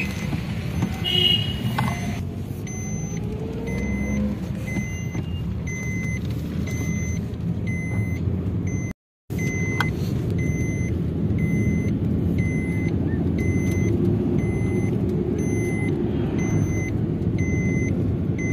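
Cabin noise of a Maruti Suzuki Alto 800 driving in traffic: steady engine and road rumble. From about two seconds in, a short electronic warning beep repeats roughly every two-thirds of a second. The sound cuts out for a moment near the middle.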